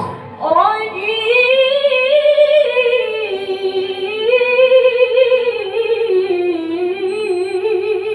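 A Qur'an reciter's voice in melodic mujawwad recitation. After a quick breath at the start, it holds one long ornamented note, its pitch wavering, rising and falling through the phrase.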